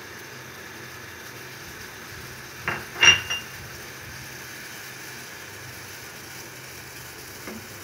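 Steady low kitchen hiss, broken about three seconds in by a few light knocks and one ringing metallic clink, like a steel utensil tapping a steel pot; the clink is the loudest sound.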